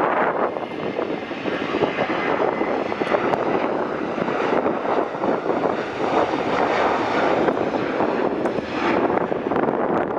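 Boeing 737's CFM56 turbofan engines running at high thrust as the jet rolls down the runway, a steady broad rushing jet roar that wavers in level.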